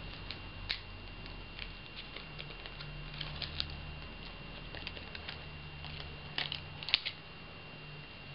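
Light, irregular clicks and crackles of a thin clear plastic protective film being handled and peeled off its paper backing, with a few sharper clicks about a second in and near the end. A faint steady high-pitched tone sits underneath.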